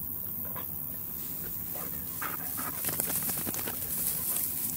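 A dog whining, with a few short high whines around the middle, over a steady low hum.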